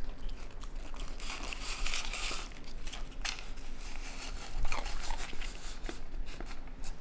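A raccoon pawing through Goldfish crackers in a bowl and eating them: irregular clicking and rattling of crackers against the bowl, with crunching.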